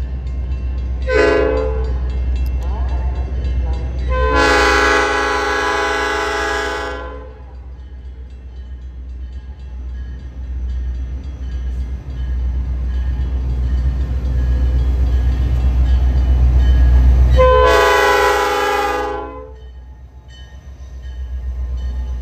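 Train horn blowing: a short blast about a second in, a long blast of about three seconds a few seconds later, and a shorter blast near the end. A steady low rumble of the train runs underneath, growing louder before the last blast.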